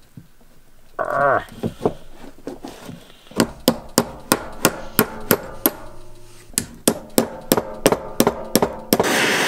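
Hammer tapping repeatedly on a rusted, seized roller chain clamped in a steel vise, about three sharp metallic strikes a second with a short pause midway, to work the stiff links free. A brief squeal about a second in, and near the end a propane torch starts up with a steady loud hiss.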